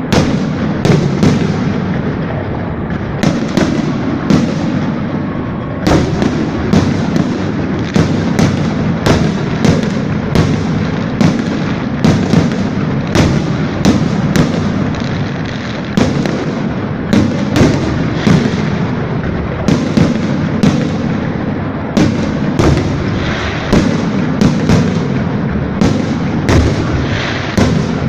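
Fireworks salute: shell bursts go off in close succession, bang after bang, one to several a second, over a continuous low rumble of booms and echoes.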